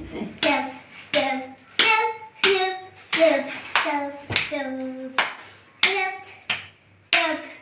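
A young boy clapping his hands in a steady rhythm, about three claps every two seconds. Each clap comes with a short sung or chanted syllable.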